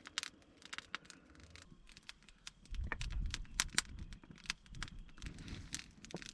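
Swedish stove of bundled dry split wood burning, crackling with many sharp, irregular pops. A low rumble swells about three seconds in and lasts a few seconds.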